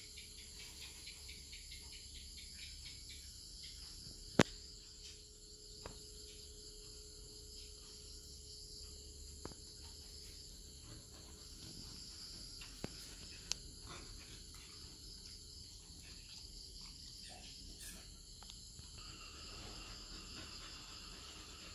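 Steady, high chirring of insects such as crickets, finely pulsing. A single sharp click about four seconds in, with two fainter clicks later.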